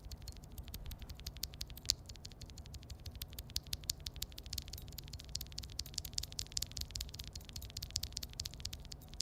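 Rapid typing on a mechanical keyboard fitted with Glorious Panda tactile switches, a fast, even stream of key clacks. The switches' leaf springs are prone to a tick or ping noise.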